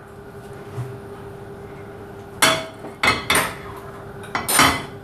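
Metal frying pan knocking and scraping on the gas stove's grate as it is tilted to spread the oil: a few sharp clanks about halfway through and a longer, louder one near the end, over a faint steady hum.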